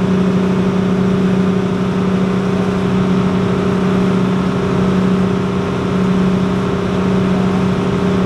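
Engine of a motorized outrigger boat running steadily under way: a constant low hum over the rush of water and wind.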